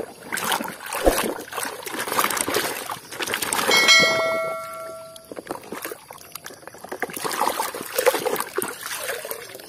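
Muddy water sloshing and splashing in a plastic tub as a hand scrubs a toy in it. About four seconds in, a bell-like chime rings for about a second and a half, timed with an on-screen subscribe-button animation.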